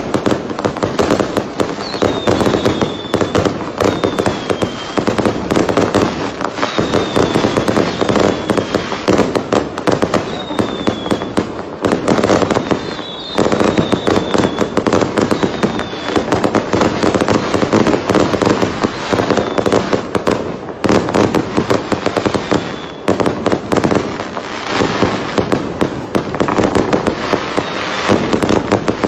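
Ground fireworks crackling and popping nonstop in a dense, rapid stream, with a few short high whistles that drop in pitch in the first half.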